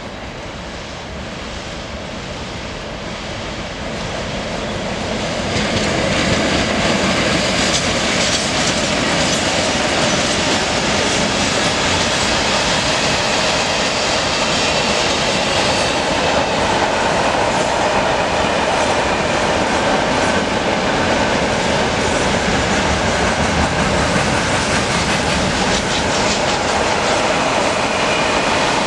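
Freight train approaching and passing close by: the rumble grows over the first six seconds or so, then a long run of open freight wagons rolls past steadily, wheels clacking over the rail joints.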